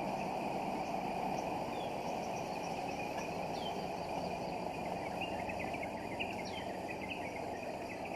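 Outdoor background noise, a steady low hum, with a bird giving a short, high, falling call every couple of seconds and a flurry of quick chirps midway.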